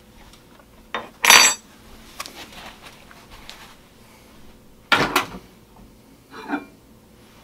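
A few scattered clinks and knocks of dishes and utensils being handled. One about a second in rings briefly, and more come at about five and six and a half seconds.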